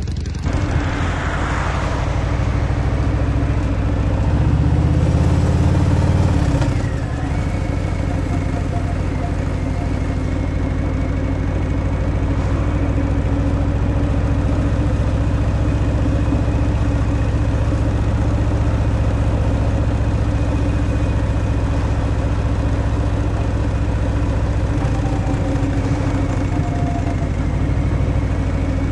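Harley-Davidson Fat Boy's Milwaukee-Eight 114 V-twin on its stock exhaust, running steadily at low revs, with one brief rise in revs about five seconds in that drops back soon after.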